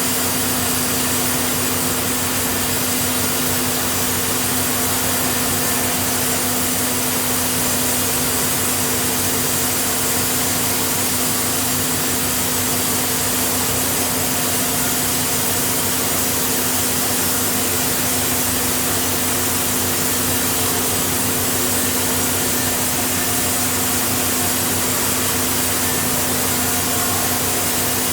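Horizontal bandsaw mill running steadily through a Sapele hardwood log: a constant hissing machine noise with a steady hum beneath it.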